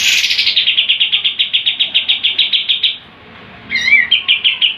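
Kapas tembak songbird singing its rapid 'tembakan' trill: a fast, even rattle of high notes, about ten a second, that breaks off after about three seconds. After a short pause it gives a brief warbled note and starts a second rattling trill.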